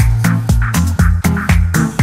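Background music with a steady beat, about four strikes a second, over a bass line.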